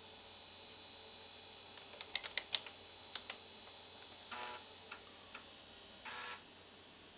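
About six quick keystrokes on the Amstrad PC 1512 keyboard as a command is typed and entered. Then two short buzzing grinds from the 5.25-inch floppy drive as it reads the program off the disk, with a couple of single clicks between them.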